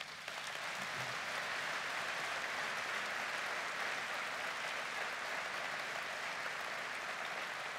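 A large audience applauding, breaking out at once and holding steady.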